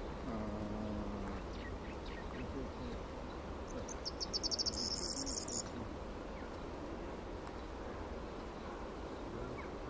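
A high, rapid chirping trill of about ten pulses a second, lasting about two seconds midway, over a steady low outdoor rumble. A brief low hum with a few overtones comes just after the start.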